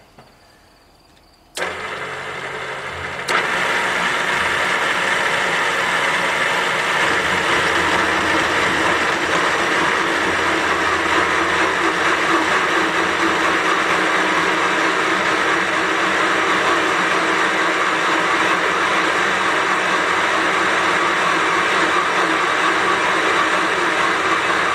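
A Winona Van Norman seat and guide machine switches on about a second and a half in. Its cutter bites into the Willys L-134 cast-iron block about two seconds later, giving a louder, steady cutting noise as it bores the pocket for a hardened valve seat.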